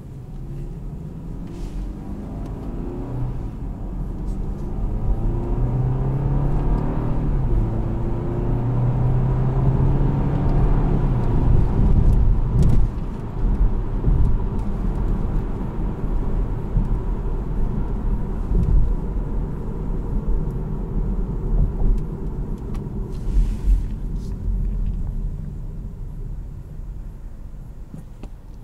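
BMW 318i (G20) four-cylinder turbo with automatic gearbox accelerating: the engine note climbs, drops at an upshift about seven seconds in and holds steady, then gives way to steady road and tyre noise that eases off near the end.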